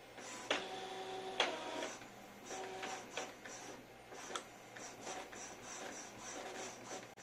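Epson L3110 inkjet printer printing a nozzle-check test page. Its motors whine and whir as the paper feeds and the print head moves, with clicks in between. A steady whine starts about half a second in and ends in a click about a second later, followed by shorter repeated whirs and clicks.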